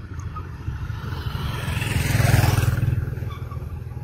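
A road vehicle driving past, its tyre and engine noise swelling to a peak a little past halfway and then fading away.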